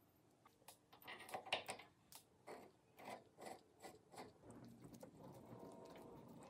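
Cast-iron vise parts being handled and fitted together: a string of sharp metallic clicks and knocks, then a steady rubbing as the parts slide against each other over the last second or so.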